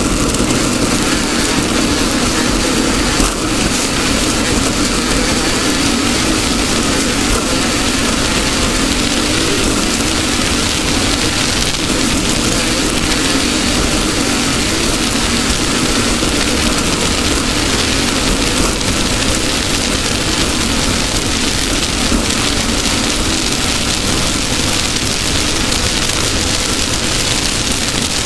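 Off-road race car's engine running steadily under a loud, even rush of noise, with no clear revving or gear changes.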